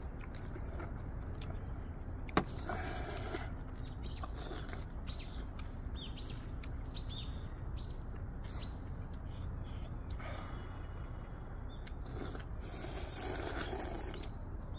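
People slurping instant ramen noodles and sipping hot broth from bowls, in several short noisy bursts, with a sharp click about two seconds in, over a steady low background rumble.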